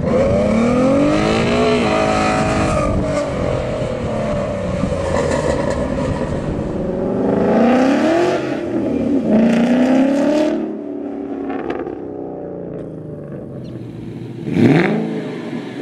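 Ford Mustang performance exhausts revving and accelerating across several clips: first a 2011 Mustang 3.7-litre V6 with an X-pipe and Flowmaster Force II axle-back, its note rising in repeated sweeps; then a 2011 Mustang GT's V8 revving up and down as it drives; then a single sharp rev blip from a parked 2011 Mustang GT with Corsa exhaust near the end, the loudest moment.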